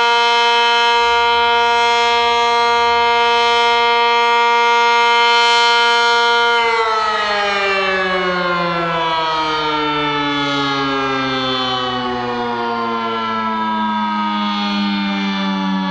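ACA Cyclone tornado siren sounding a loud, steady tone. About seven seconds in it starts winding down, its pitch falling slowly and evenly.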